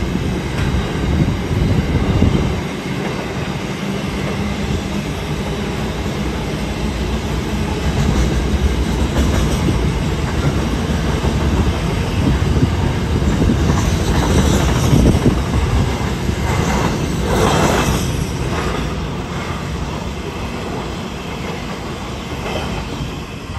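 Freight train hopper wagons rolling past close by, a continuous rumble and clatter of steel wheels on the rails, with brief higher-pitched wheel squeals past the middle. The sound eases off near the end as the last wagon goes by.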